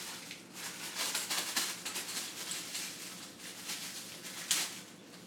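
Plastic packaging wrap crinkling and rustling in a run of short crackles as it is pulled off a metal floor-lamp pole, with one sharper, louder crackle about four and a half seconds in.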